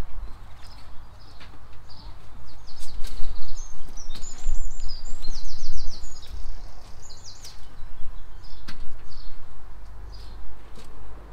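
Small birds chirping, with a quick run of high trills in the middle, over a loud, fluctuating low rumble and a few sharp clicks.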